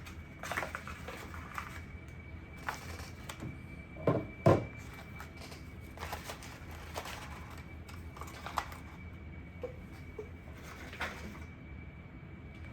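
Packaging being handled: intermittent rustling and scraping, with two sharp knocks close together about four seconds in. A faint steady high tone runs underneath.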